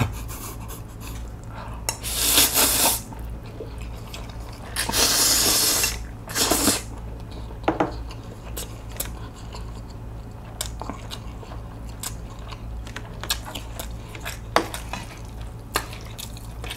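A person slurping spicy cold bibim noodles, in two long loud slurps a few seconds apart and a short one just after, then chewing with many small wet clicks and taps of chopsticks on the bowl.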